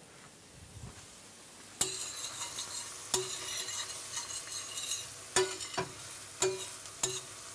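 Beef stock and sautéed mushrooms sizzling in a hot stainless steel frying pan as they reduce into a pan sauce, while a spoon stirs it. The sizzle starts suddenly about two seconds in, and the spoon knocks against the pan with a short metallic ring about six times.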